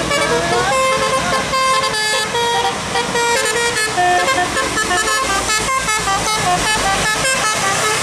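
Bus telolet horn, a multi-tone musical horn, playing a tune. Held notes step between pitches at first, then give way to a quick run of short notes from about the middle on.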